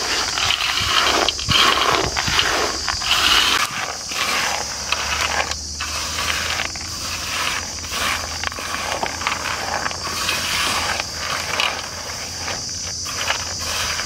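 Raw peanuts and flour being tossed and rubbed by hand in a large aluminium basin: the peanuts rattle and scrape against the metal in irregular strokes, over a steady high hiss.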